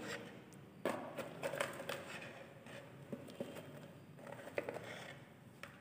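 Faint clicks and scrapes of a plastic reagent jar being handled, as a plastic spatula scoops ferrous sulfate crystals from it.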